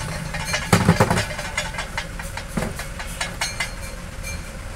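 Metal clicks and clinks as a steel piston ring compressor band is picked up and handled on the bench, with a heavier knock about a second in. A steady low engine hum runs underneath.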